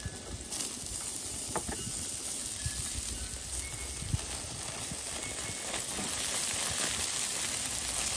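Sliced zucchini, yellow squash, mushrooms and then broccoli florets dropping onto an oiled Blackstone griddle and sizzling. The sizzle grows louder as more vegetables go on, with a few soft knocks as pieces land.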